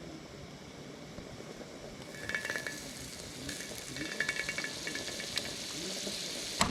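Food sizzling in a hot pan, with a utensil scraping and clinking against the pan in two short spells partway through.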